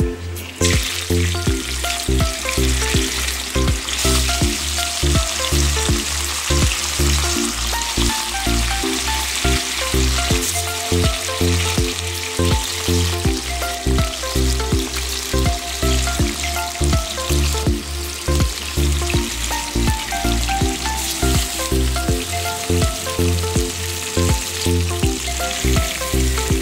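Hilsa fish steaks sizzling steadily as they fry in hot oil in an aluminium wok. The sizzle starts about half a second in as the first piece goes into the oil, with background music under it.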